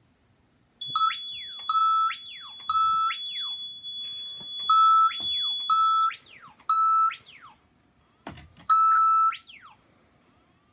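Siren tone generator sounding a fire alarm through an EST Genesis speaker strobe tapped at 1/4 watt. It plays an electronic siren pattern, a short steady note followed by a quick rise and a longer fall in pitch, repeating about once a second. It starts about a second in and stops near the end.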